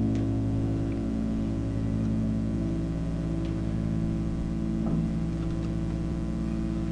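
Piano chords held and ringing on, with a few soft notes struck over them, one more clearly about five seconds in.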